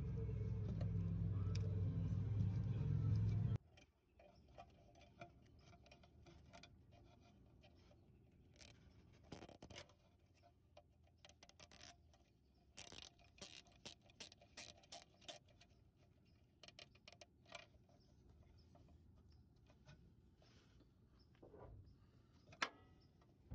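A low hum stops abruptly about three and a half seconds in. After it come faint scattered clicks and rustles of hands handling taped wiring and a plastic zip tie, with quick runs of clicks in the middle.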